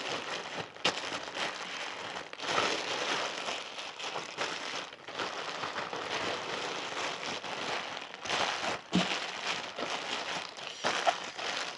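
Thin black plastic bag crinkling and rustling as it is pulled and stretched tightly around a bowl, in stretches with a few brief pauses.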